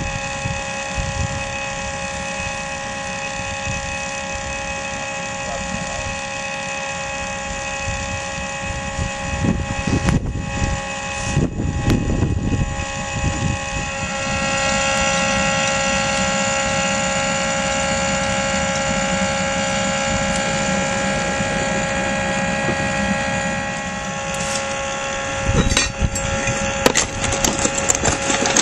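Battery-powered electric blower fan on the chimney of a miniature steam locomotive, running with a steady whine to draw the fire while steam is raised. It gets louder about halfway through, and a few knocks come near the end.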